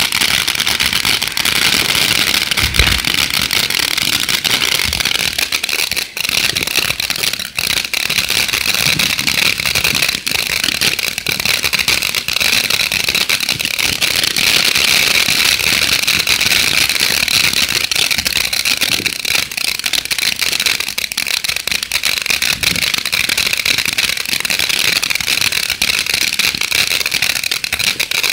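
Ground fountain firework spraying sparks: a loud, steady hiss shot through with rapid crackling that keeps going without a break.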